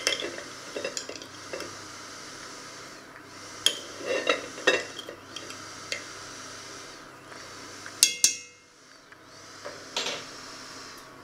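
Pots and metal utensils clinking and knocking in several short clusters, the loudest a ringing metal clink about eight seconds in, over a steady low sizzle from a pot heating on the hob.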